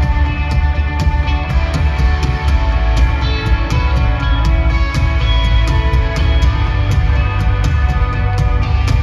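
Rock band playing live: electric guitar, bass and drum kit, with a strong bass and regular, evenly spaced drum and cymbal hits.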